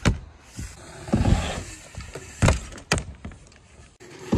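Thuds and sharp knocks from a mountain bike being jumped and ridden on a dirt jump setup. There is a knock right at the start and a duller thump about a second in, then two sharp knocks about half a second apart past the middle.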